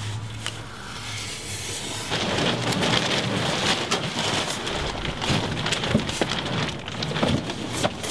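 Dense rustling and crackling as insulated concrete form foam blocks are handled and shifted among plastic sheeting, with many small clicks. It starts about two seconds in, after a quieter stretch with a low hum.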